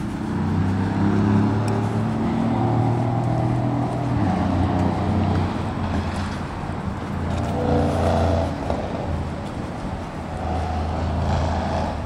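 Low engine drone that shifts in pitch every few seconds and swells briefly about eight seconds in.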